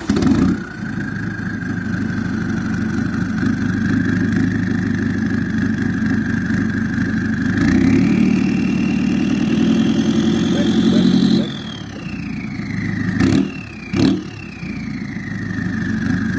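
Chevrolet MY16 turbo-diesel engine catching and idling with a steady turbo whistle. About eight seconds in it is revved and held, and the whistle climbs in pitch. It drops back, then comes two quick throttle blips, each with a whistle that falls away, before it settles to idle again.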